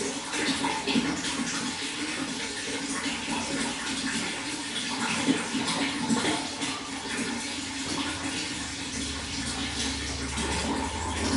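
Water running steadily with an irregular splashing texture; a low hum joins about nine seconds in.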